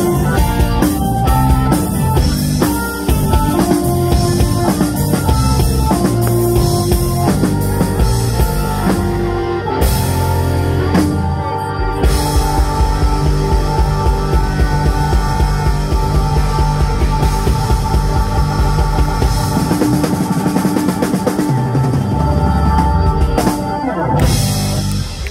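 Live rock band playing loud: drum kit, electric guitar, bass and keyboards together, the music dropping away right at the end.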